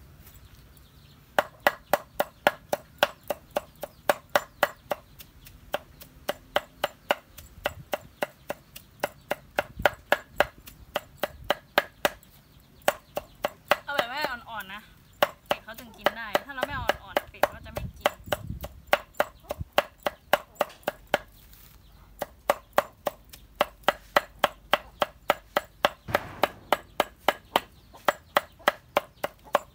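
Knife chopping vegetables on a cutting board in a steady run of sharp strokes, about three a second, with a brief pause about halfway through.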